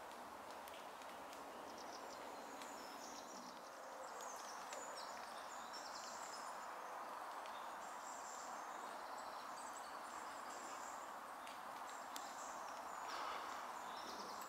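Faint woodland ambience: a steady background rush with small birds chirping and twittering high above it.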